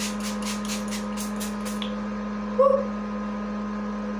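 e.l.f. hydrating face mist pump spray bottle, pumped about eight times in quick succession, roughly four short sprays a second, over a steady low hum. A short pitched note follows about a second later.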